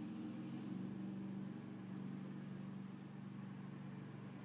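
Car engine idling steadily, a low even hum heard from inside the cabin.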